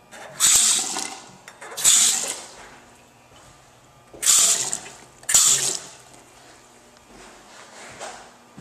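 Two-handle bathroom sink faucet turned on and straight off in four short spurts, water splashing into the basin: two spurts about a second apart, a pause, then two more.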